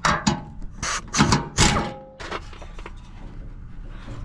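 Metal hand tools clanking and knocking: several sharp knocks with brief ringing in the first two seconds, then a quieter stretch with only small clicks.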